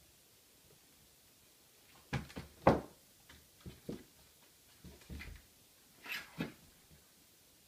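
Irregular knocks and bumps, several close together about two seconds in, the loudest just after, then scattered single knocks.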